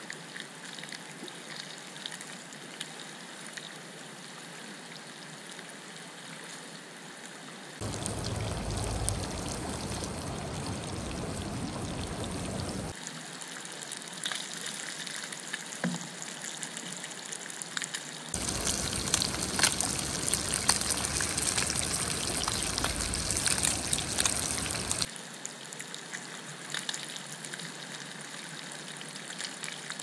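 Breaded trout pieces sizzling and crackling in hot oil in a small pan, mixed with the rush of running creek water. The sound steps up louder and fuller in two stretches, a shorter one about a quarter of the way in and a longer one past the middle.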